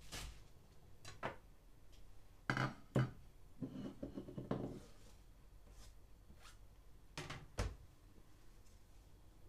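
Kitchen knife knocking on a cutting board while cutting fresh spinach: a few separate knocks, the loudest about three seconds in, then a short stretch of rougher scraping and rustling, and two more knocks later on.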